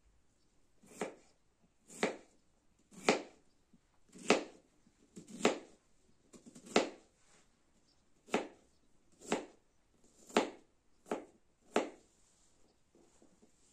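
Eleven short blows struck at a steady pace of about one a second, each a sharp knock, the last few a little quicker.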